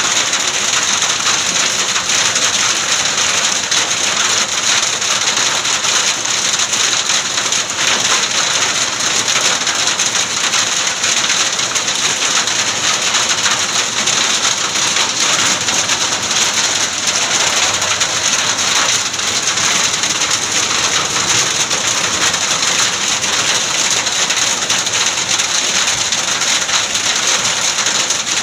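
Heavy hailstorm: hailstones and rain pelting down onto a road and the ground around it, a loud, steady, dense patter of countless small impacts.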